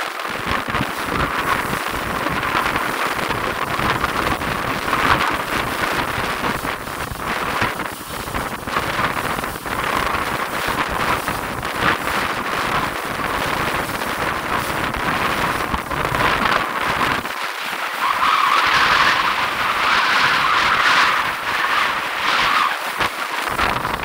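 Wind buffeting the microphone of a boat under way, over a steady rush of engine and water noise.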